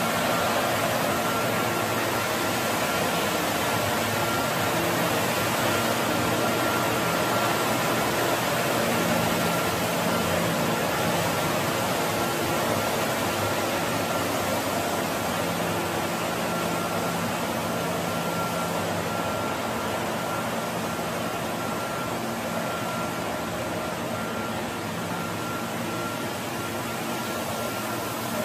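CT160BT85 ride-on floor scrubber running its scrub brushes and vacuum: a steady machine hum with a constant high whine, growing slightly fainter as it drives away.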